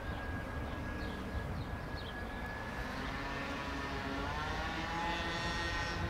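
Airbus A319 jet engines on short final for landing: a steady whine over a low rumble. About four seconds in, several whining tones bend in pitch and the sound grows a little louder as the airliner nears the runway.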